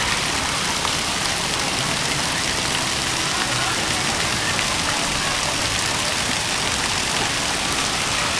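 Steady hiss of water splashing and spraying in a shallow pool, with a low rumble beneath.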